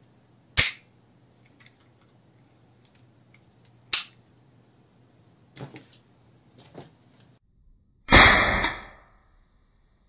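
KWC Beretta M92 (92A1) CO2 airsoft pistol firing two single shots with blowback, each a sharp crack, about three seconds apart. Lighter clicks and knocks of the pistol being handled follow, then about eight seconds in a louder, longer blast of just under a second.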